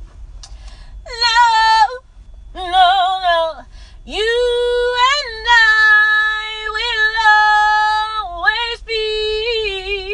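A woman singing unaccompanied, wordless runs with vibrato and a long held high note of about four seconds, with short phrases before and after.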